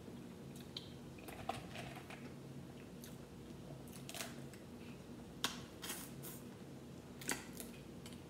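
Boiled crawfish shells cracking and snapping as they are peeled by hand: a few sharp, irregular cracks, the strongest two near the end, over a steady low hum.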